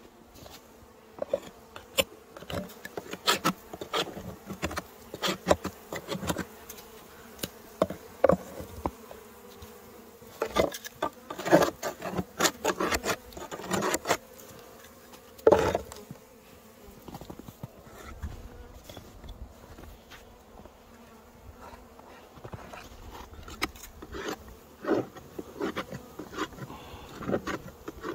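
Honeybees buzzing at the hive, with many sharp knocks and scrapes, thickest in the first half and sparser near the end.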